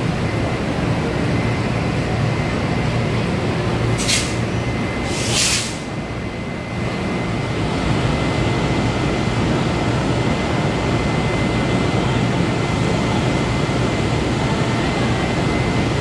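Train's steady mechanical rumble, with two short hisses of air about four and five and a half seconds in.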